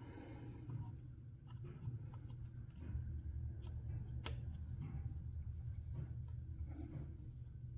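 Faint scattered clicks and light handling noises as spark plug wires are refitted, over a steady low hum.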